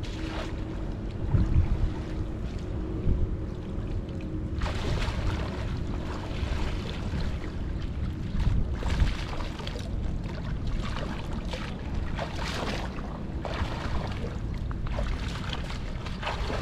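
Wind rumbling on the microphone, with irregular bursts of water splashing from about four and a half seconds in.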